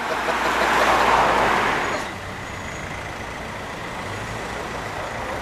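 A road vehicle passing close by: its rushing tyre and engine noise swells and fades over the first two seconds, leaving a steady low hum of road traffic.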